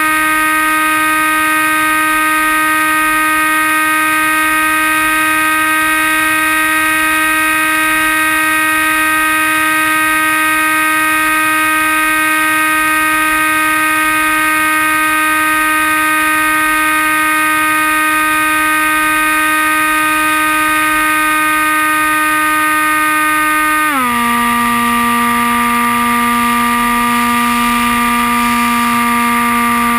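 Comet RC FPV plane's motor and propeller running at full throttle, a steady hum with a hiss of rushing air, heard from a camera mounted on the plane. About 24 seconds in, the pitch drops to a lower note as the motor slows.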